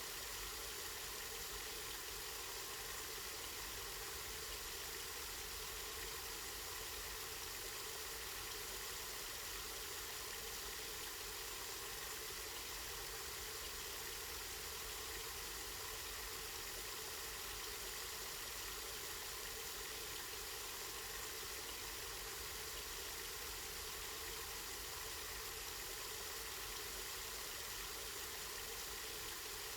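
Water of a spring running steadily, a constant even rush with no change.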